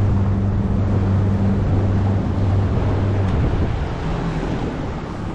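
Boat outboard motor running steadily under wind and water noise. The engine note drops away about three and a half seconds in as the boat slows.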